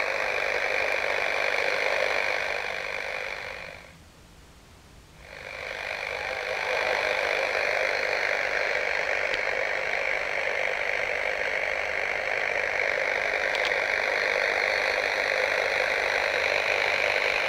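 Direct-conversion shortwave receiver on the 14 MHz band putting out a steady hiss of band noise through its narrow audio filter. The hiss fades out for about a second and a half around four seconds in, then comes back.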